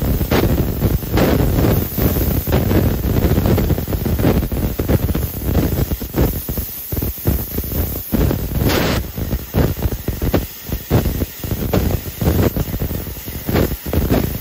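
Fiber laser cutting head cutting sheet metal: a loud, rough rushing hiss of assist gas and sparks that flickers rapidly in level, with several brief drops in the second half.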